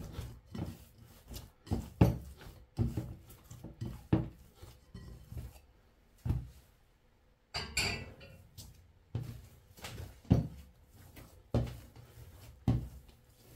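Mandazi dough being kneaded by hand, first in a bowl and then on a countertop: repeated soft thuds and slaps about once a second, with a short scraping clatter a little past halfway as the bowl is moved.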